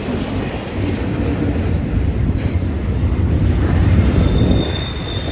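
Intermodal freight train rolling past: a continuous heavy rumble of steel wheels on rail that swells to its loudest about four seconds in. Near the end a thin, steady, high wheel squeal joins in.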